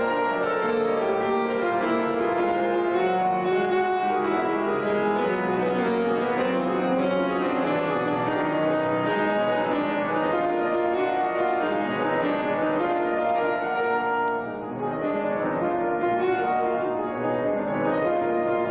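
Classical solo piano music played on a grand piano. The notes are dense and continuous, with a brief softer moment about three quarters of the way through.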